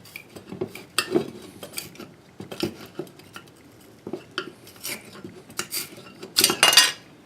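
A metal tool scraping and clicking against a wheel center cap, prying off the remains of an old glued-on emblem. The scrapes are short and irregular, with a longer, louder scrape near the end.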